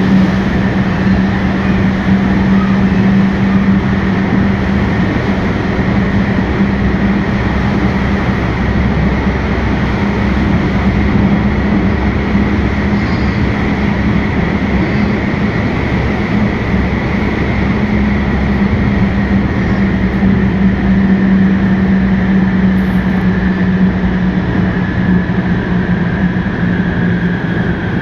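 Madrid Metro 9400-series Ansaldobreda electric train running under 1500 V, heard inside the car. A steady high traction-motor whine and a low hum sit over wheel-on-rail running noise, and the whine falls slightly in pitch near the end.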